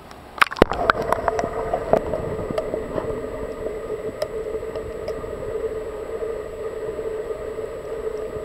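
A camera is dunked underwater, with a few splashing knocks in the first couple of seconds. A steady droning hum is then heard through the water.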